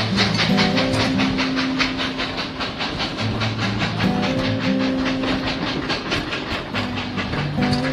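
Durango & Silverton narrow-gauge passenger cars rolling past, their wheels clicking fast and evenly on the rails, about five clicks a second. Held tones that change pitch in steps run underneath.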